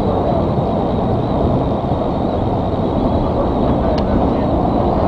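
MBTA Red Line 01800-series subway car running along the track, heard from inside the front of the car: a steady, loud rumble of wheels on rail with a thin high tone over it, and a single sharp click about four seconds in.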